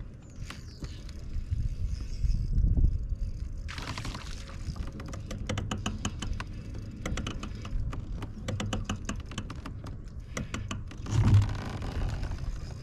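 Fishing reel clicking in quick, irregular runs as a fish is fought on a bent rod. A steady low wind rumble sits on the microphone, with two short rushes of noise, one about four seconds in and a louder one near the end.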